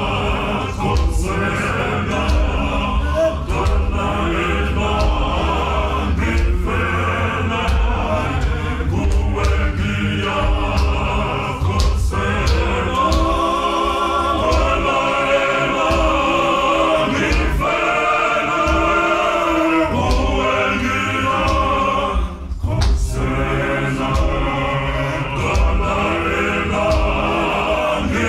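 Male gospel choir singing in harmony, many voices together, with a brief drop about three-quarters of the way through.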